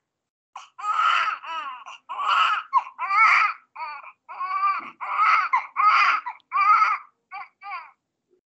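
Newborn baby crying in a rapid run of about a dozen short cries, each well under a second. The last two near the end are briefer and weaker.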